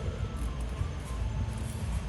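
Background music with a steady low beat and short melodic notes.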